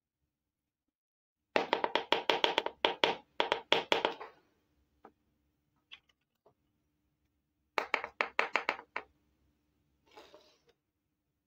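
Small hard-plastic toy kitchen pieces clicking and clattering as they are handled and set down. There is a rapid run of taps for about two and a half seconds, a few single clicks, a second shorter run of about eight taps, then a brief soft scrape near the end.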